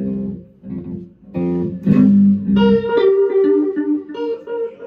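Acoustic and electric guitars played loosely: four strummed chords, then a run of held notes stepping down in pitch.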